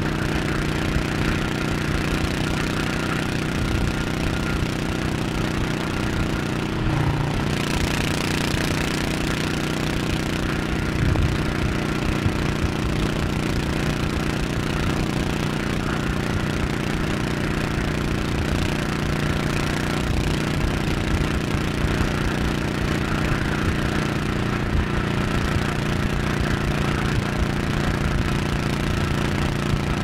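Honda cruiser motorcycle's engine running steadily under way at road speed, heard close up with a constant rush of wind and road noise. About seven seconds in the engine note shifts and a louder rush of air rises for a few seconds before settling.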